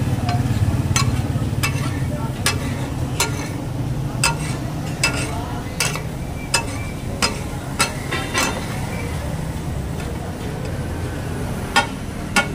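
Metal spatula striking and scraping a large flat griddle (tawa) as meat is stirred in sizzling gravy: a sharp clack about every two-thirds of a second, pausing briefly two-thirds of the way through and starting again near the end, over a steady low rumble.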